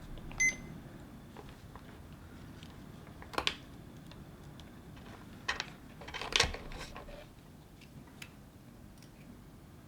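A short electronic beep, then a few scattered quiet clicks and knocks as multimeter test leads and probes are handled and connected for a current measurement.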